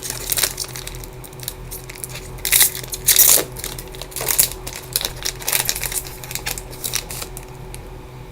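Trading-card pack wrapper crinkling and tearing as the pack is opened, with irregular rustles and a few louder crackles, then cards being handled.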